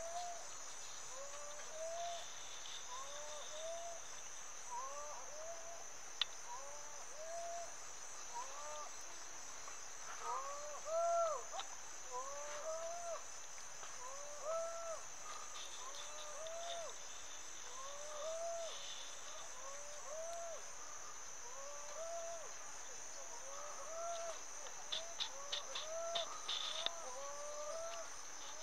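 Insects trilling steadily at a high pitch, with short rising-and-falling calls from another animal repeating about once a second. A brief run of ticks comes near the end.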